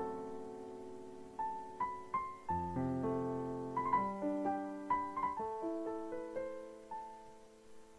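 Background piano music: soft chords with a slow melody of single notes over them.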